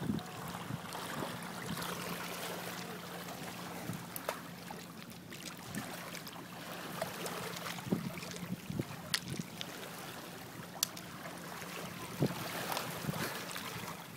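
Shallow lake water lapping and splashing around a wading golden retriever as it dips its head under to grab a stone off the bottom. There is a faint steady low hum and a few sharp clicks.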